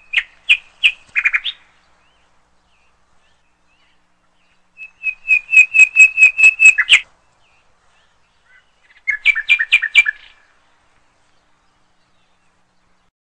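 A bird chirping in three bursts, each a quick run of sharp, high repeated notes, with silence in between.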